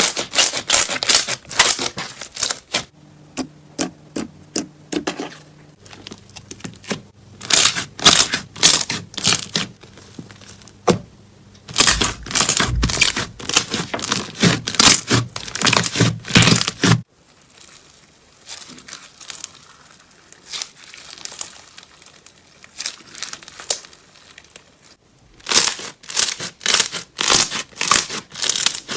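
Slime being squeezed and worked by hand, with quick runs of crackling pops and crinkles as air bubbles in it burst. The sound changes suddenly several times, as one clip gives way to the next.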